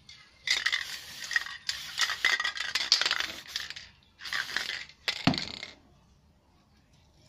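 Aerosol spray paint can in use: rattling and clinking as it is shaken and sprayed, in several bursts of a second or more. A knock follows about five seconds in as a can is set down on the board.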